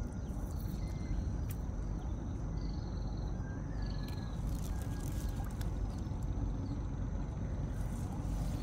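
Steady low rumble of wind and river water around a small boat, with faint clicks and water trickling as a wet gill net is hauled in by hand.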